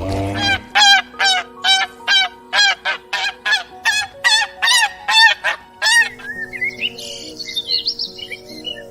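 Domestic waterfowl calling: a rapid run of about fourteen loud, nasal honking calls, roughly two or three a second, that stops about six seconds in and gives way to fainter, higher bird chirps.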